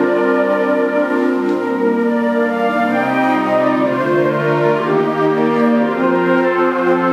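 Concert band playing held chords of brass and woodwinds together, the chords changing slowly at a steady, full volume.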